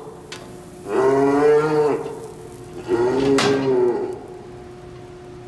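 Longhorn heifers mooing: two long moos of about a second each, about a second in and again about three seconds in.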